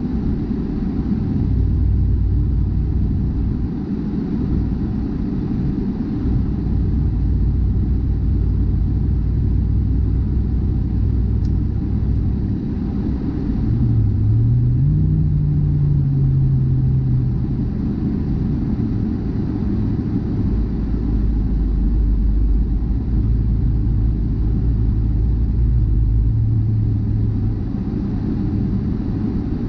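Car driving on a snowy highway: a steady low engine and road rumble, with a low hum that rises and falls in pitch about halfway through.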